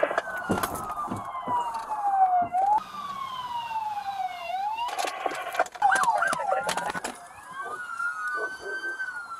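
Several police car sirens wailing together, their pitch falling slowly and rising again, with a quicker warble about six seconds in. Sharp knocks and thumps come through, the loudest about two seconds in and again around five to six seconds.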